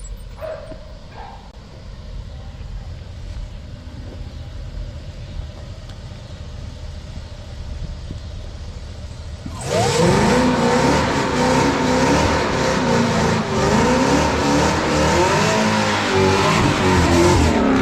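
Chevrolet Camaro ZL1's supercharged V8 rumbling low through an aftermarket axle-back exhaust, then revved hard and repeatedly from about ten seconds in, the pitch rising and falling with each blip.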